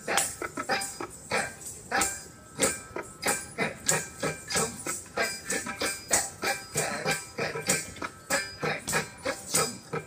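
Ankle bells (ghungroo) jingling with the rhythmic bare-foot stamps of an Indian classical dancer on a paved floor, several strikes a second, over accompanying music.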